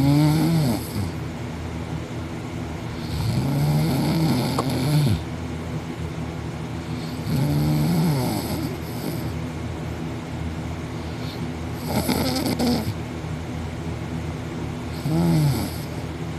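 A sleeping person snoring loudly with the mouth open, five snores about three to four seconds apart, each rising and falling in pitch.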